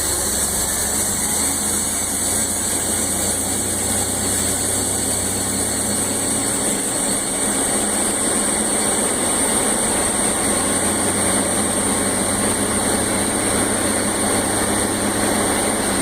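1999 Chevrolet S10 Blazer's 4.3-litre V6 running steadily, with a steady high-pitched whine over the engine, its replacement alternator charging.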